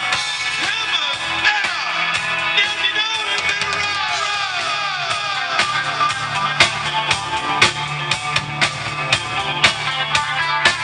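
Live rock band playing an instrumental passage: guitar, bass and drum kit. A string of falling slides runs through the first few seconds, and steady drum hits carry the rest.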